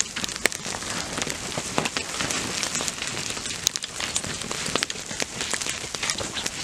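Knives cutting and scraping the singed, charred hide of animal heads: a dense, irregular crackling with many sharp clicks over a steady hiss.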